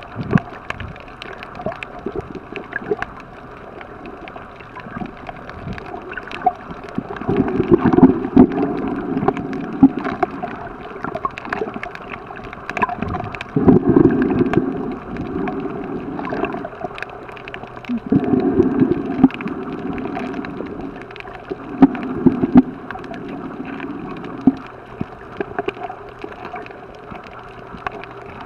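Muffled underwater water sound heard by a camera below the surface: gurgling and swishing that swells up every four or five seconds, with scattered short clicks.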